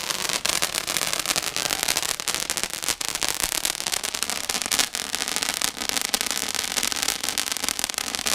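Fireworks crackling and popping in a rapid, unbroken stream of small bangs.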